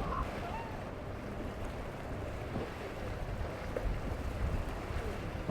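Wind buffeting the microphone over the wash of surf and boat wakes, with faint distant voices.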